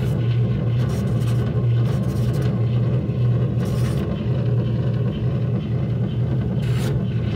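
Amplified painting: a loud steady low hum with a few brief scraping swishes of the brush over the surface, the clearest about four and seven seconds in.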